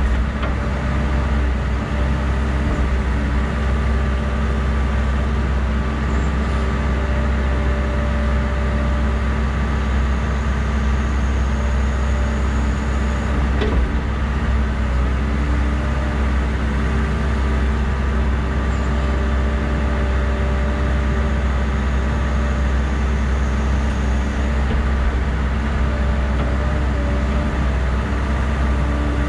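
Hydraulic excavator's diesel engine running steadily, heard from inside the cab while the boom and bucket are worked. A faint high whine comes and goes twice.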